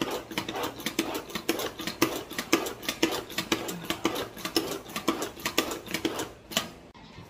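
Hand-pressed plunger food chopper chopping carrots in its plastic bowl: a rapid, even run of strokes about four a second, stopping near the end.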